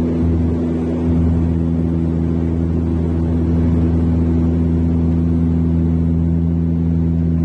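Propeller aircraft engines droning steadily, a constant low hum of several even tones over a rushing noise.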